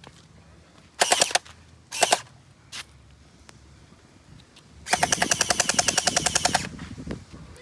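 Electric gel blaster firing on full auto in rapid bursts: a short burst about a second in, a shorter one a second later, then a longer burst of nearly two seconds near the end.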